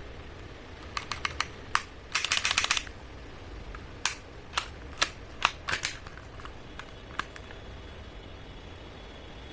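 Tokyo Marui Mk23 spring airsoft pistol being handled: a series of sharp plastic clicks and clacks, with a quick rattling run of clicks about two seconds in, then several single loud clacks spaced about half a second apart.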